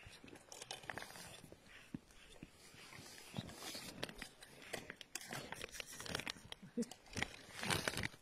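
Crunching and scraping on crusty, snow-covered ice, with clothing rustling, as someone moves and kneels by the ice hole. Irregular crunches throughout, with a louder flurry near the end.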